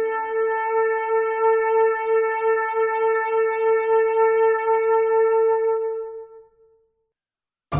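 A wind instrument holds one long, steady note with a slight waver, then fades away about six and a half seconds in. After a short silence, another piece of music with a low bass line starts right at the end.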